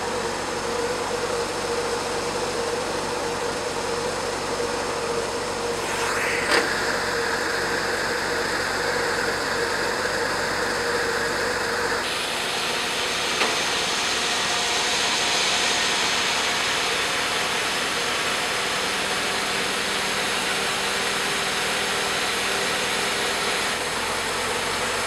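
Engine of a 1944 Ward LaFrance M1A1 wrecker running steadily, with a short click about six seconds in.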